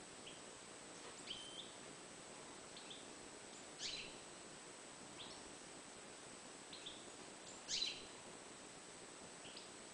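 Caged European goldfinch giving short, scattered chirps, roughly one every second. Two louder, sharper calls come about four and eight seconds in.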